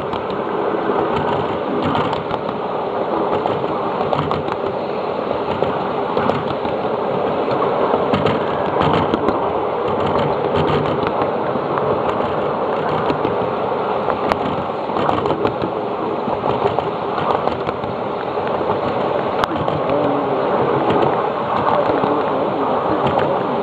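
7.5-inch gauge ride-on miniature train rolling along its track: a steady rumble of steel wheels on rail, with many small scattered clicks from the wheels and rail joints.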